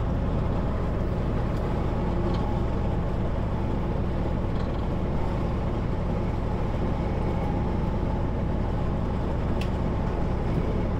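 Kenworth W900L semi truck driving at a steady speed: an even engine drone and road noise heard from inside the cab.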